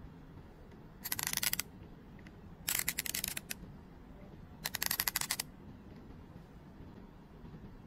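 Ratchet head of an INSIZE IST-19WM100C torque wrench clicking as it is worked by hand, with the pawl set for clockwise drive: three short bursts of rapid clicking, about a second and a half to two seconds apart.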